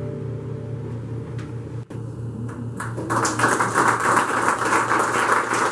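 The last notes of an acoustic guitar die away over a low steady hum, then the audience breaks into applause about three seconds in, dense clapping that continues from there.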